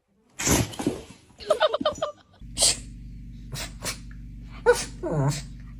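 A dog sneezing several times: short, sharp sneezes in quick succession, the loudest about three-quarters of the way through.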